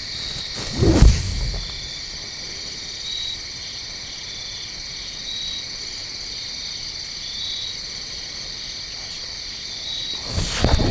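Insect chorus: a steady high trilling with short chirps repeating about once a second. A brief low rustle or bump is heard about a second in, and a few more near the end.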